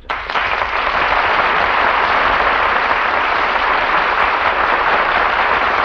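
Studio audience applauding steadily, breaking out at once and holding an even level, heard through an old broadcast recording with the top end cut off.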